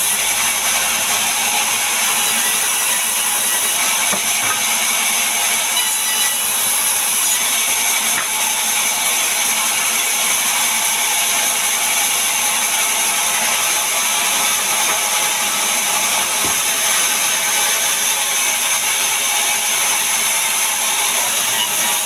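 Sawmill band saw running and cutting timber: a steady, loud hiss with several high whining tones held throughout.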